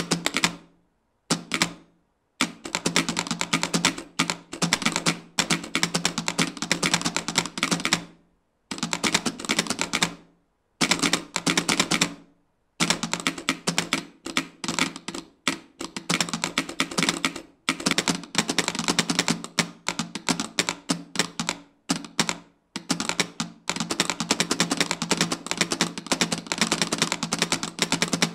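A row of six telegraph straight keys clacking, tapping out Morse code in dense runs of sharp clicks broken by short pauses of up to about a second.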